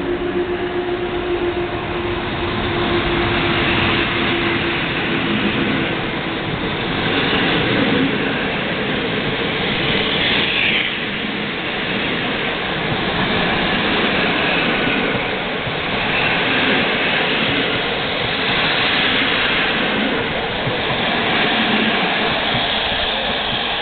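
Passenger coaches of a locomotive-hauled train running past close by along a station platform: a steady noise of wheels on the rails.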